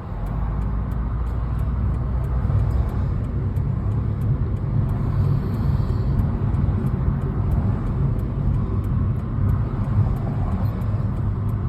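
A car being driven, its steady engine and road rumble heard from inside the cabin.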